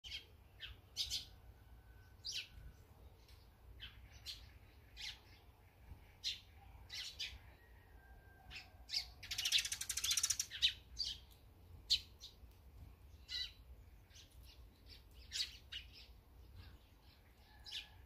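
Small songbirds chirping in short, sharp, scattered calls at a seed feeder, Eurasian tree sparrows among them. A loud, buzzy rattle of about a second comes near the middle.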